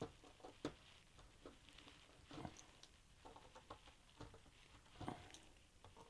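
Faint, irregular small clicks and taps of hands working on a plastic bucket bottom, pushing plastic poultry nipples into their rubber grommets to seat them.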